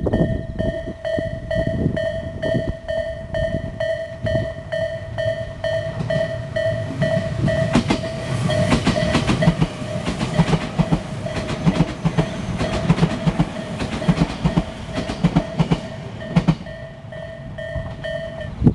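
Japanese railway crossing's electronic warning bell (Tobu type A) dinging in a rapid, even repetition. About halfway through, a Tobu 30000 series electric train passes with its wheels clicking rhythmically over the rail joints. The bell stops shortly before the end.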